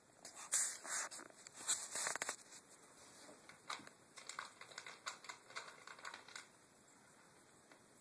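Dry kibble rattling and clicking in a plastic food-dispensing bowl as a cat paws and noses at it. Dense clattering bursts for the first two seconds or so, then sparser clicks that stop about six and a half seconds in.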